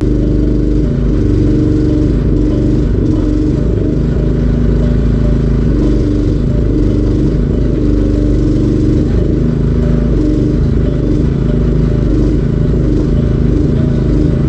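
A small engine running steadily, with a slightly wavering pitch.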